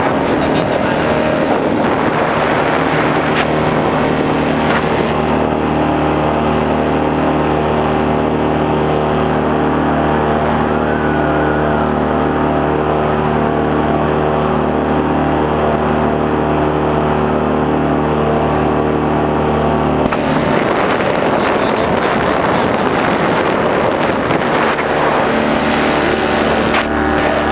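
A motor running steadily, a hum of several steady tones under a noisy haze; the steady tones drop out about twenty seconds in.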